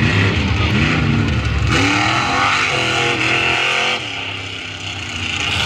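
Modified pickup truck's engine revving in quick rising-and-falling throttle blips, then held at high revs for about two seconds and backing off about four seconds in.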